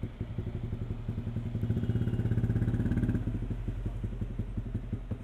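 Yamaha R15's single-cylinder engine idling through an aftermarket exhaust, a steady low pulsing beat that grows louder for about a second and a half near the middle.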